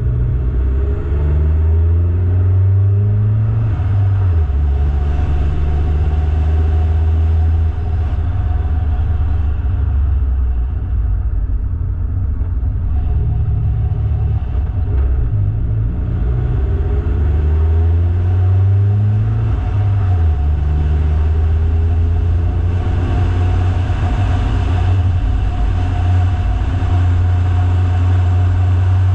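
Car engine pulling up a long mountain climb under load, with a steady low rumble. Its pitch climbs and then drops back several times as it changes gear.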